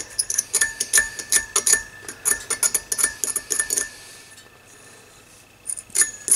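Hobby knife scraping corrosion off the metal pins of a 3-500Z glass transmitting tube: quick scraping strokes of steel on the pins, about five a second, each with a thin metallic ring. The strokes stop for a moment past the middle and resume near the end.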